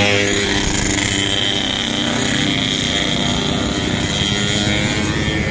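A motor vehicle's engine passing close by, its engine note fading away about as the sound begins, leaving a steady rumble with a high-pitched hiss over it.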